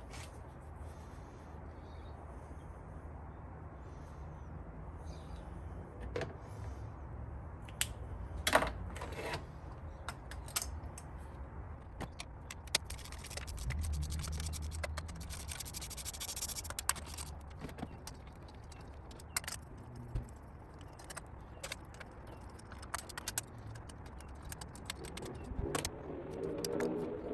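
Metal hand tools clinking, jingling and scraping at scattered moments while spark plugs are taken out with a spark plug socket, over a steady low hum.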